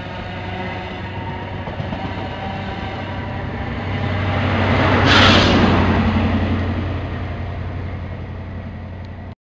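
High Speed Train passing along the platform with the steady drone of a Class 43 power car's diesel engine. It swells to a loud, hissing rush as the power car goes by about five seconds in, then fades.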